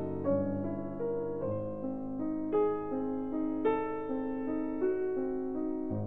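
Background piano music: slow, held notes that change about once a second.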